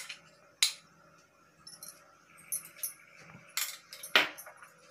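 A few sharp clinks of utensils against a cast-iron kadai as ghee is poured and scraped into it, the loudest coming near the end.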